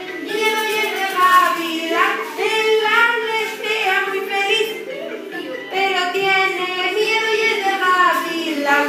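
A group of young children singing a children's song together, in sung phrases with short breaks between them.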